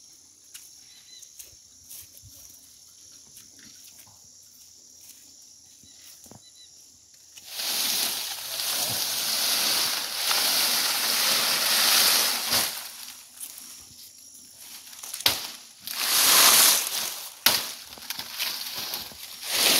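Quiet for the first several seconds with a few faint clicks, then palm fronds rustling and scraping loudly as they are dragged and laid over a muddy road, in one long stretch followed by shorter bursts.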